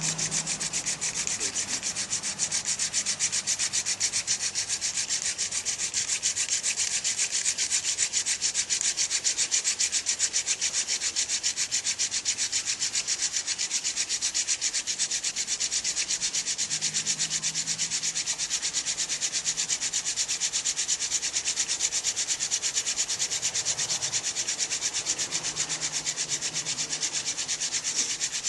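Hand-drill friction fire-making: a spindle with a semi-green fennel tip is twirled between the palms, grinding into a cedar hearth board in a steady, rapid rubbing.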